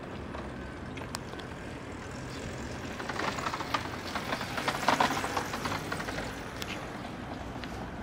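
A vehicle passing in the street: its noise swells with a clattering rattle from about three seconds in, peaks around five seconds and fades, over a steady low hum.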